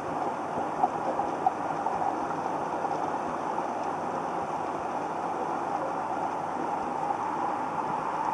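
Steady muffled rushing of pond water heard through an underwater camera, with two faint clicks in the first second and a half.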